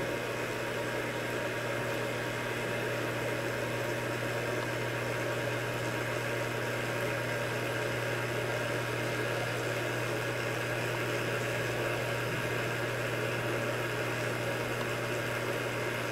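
Steady machine hum with a constant low drone and an even hiss underneath, unchanging throughout: running equipment such as a cooling fan.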